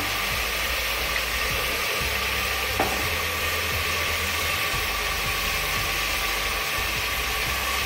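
Gas stove burner running with a steady roar and hiss under a pot of frying masala; a single click about three seconds in.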